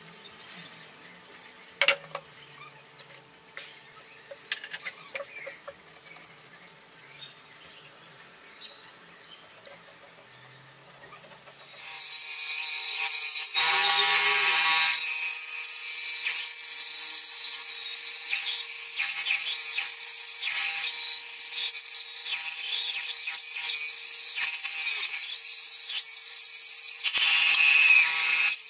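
Light clicks of a steel caliper being handled on a wooden board, then about twelve seconds in an Einhell benchtop band saw starts and runs with a steady hissing whir as a block of wood is fed into its blade.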